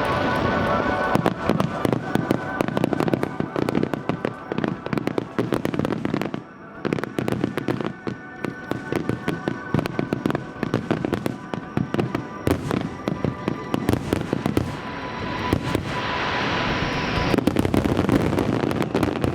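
Fireworks display: a dense, rapid crackling and popping from a large cascading aerial 'Niagara' waterfall of shells, with a rushing hiss at the start and again about 16 seconds in.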